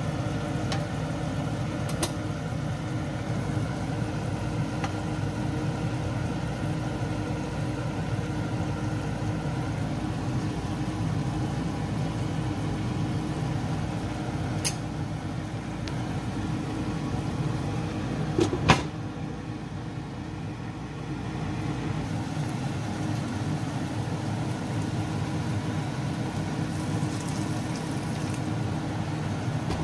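Beef pieces boiling hard in a nonstick pan: a steady low rumble of bubbling, with a few sharp clicks of a wooden spatula against the pan, the loudest a little past the middle.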